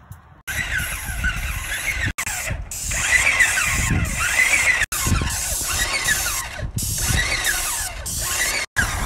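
Electric paint sprayer running, a motor whine swooping up and down again and again over the loud hiss of paint spraying onto brick. The sound cuts out briefly three times.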